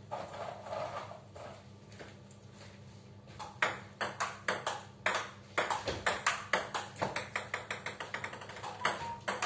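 Table tennis rally: the plastic ball clicking off rubber-faced bats and bouncing on the table. The sharp clicks start about three and a half seconds in and keep a quick, even rhythm of about two a second.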